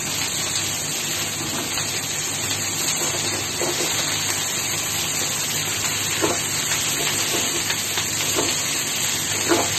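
Frying pan of kangkong (water spinach) leaves, mushrooms and onion sizzling steadily over high heat as the wet greens wilt, with a few light knocks of a wooden spatula stirring.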